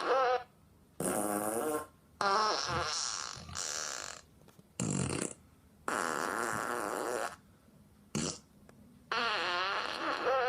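Amazon Echo smart speaker putting out a string of strange noises: about eight separate bursts, each half a second to a second and a half long, with a wavering, wobbling pitch and short silences between them. The owner takes them for a malfunction.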